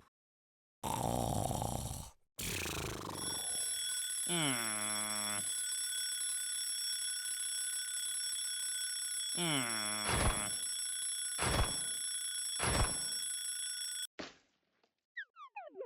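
Alarm clock ringing as one steady unbroken tone for about eleven seconds. Twice a drowsy 'mm' groan slides down in pitch, and three sharp knocks come near the end.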